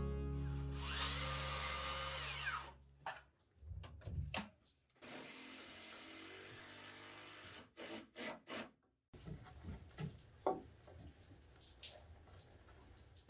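Makita XGT cordless brushless circular saw cutting timber, running steadily for about two and a half seconds and then stopping. After that, scattered clicks and knocks of tools being handled, with quiet stretches between.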